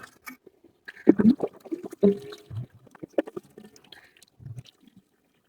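Wet, irregular squelching and gurgling of water and mud, heard as a series of short uneven splashes: the 'gup gup' sound.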